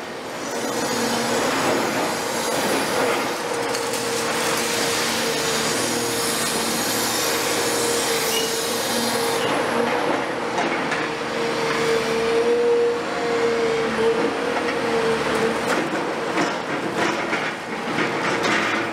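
CAT 336F long-front demolition excavator working, its engine and hydraulics running under a steady high whine while the demolition jaws crush concrete floor slabs: dense grinding and scraping for the first half, then sharp crunches and knocks as chunks break off, twice in the second half.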